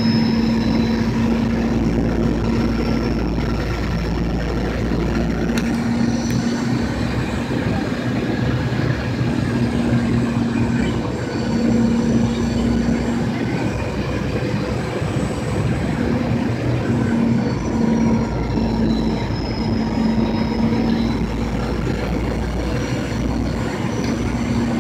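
Steady cabin noise of a jet airliner on final approach, heard from a window seat: a constant rush of air and engine noise with a low hum that comes and goes and a faint high whine drifting slightly in pitch.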